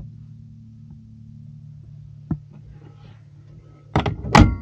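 Sharp knocks of something being handled: one at the start, another about two seconds in, then a louder clatter of several hits near the end with a brief ringing after it, all over a steady low hum.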